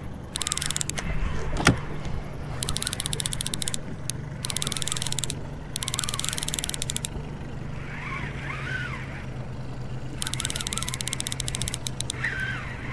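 Boat motor running with a steady low hum, broken by repeated bursts of rapid mechanical clicking, each about a second long. A single sharp knock comes about two seconds in.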